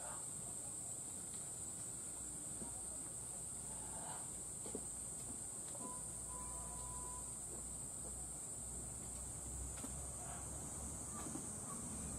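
Steady high-pitched insect chorus, with faint scattered clicks and a short faint tone about six seconds in.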